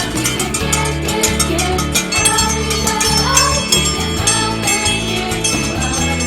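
Upbeat song with singing over a steady beat, with bass and shaker-like percussion.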